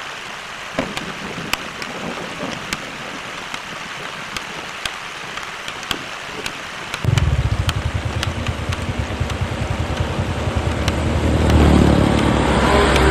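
A steady rain hiss with scattered sharp drop ticks. About seven seconds in, it switches suddenly to a nearby motorcycle engine running with a fast low pulse, growing louder toward the end.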